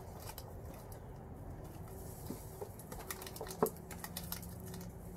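Puppies moving about on artificial turf and chewing at a fabric toy: scattered light ticks, rustles and patters, with one sharper click about three and a half seconds in. A faint low hum comes in near the end.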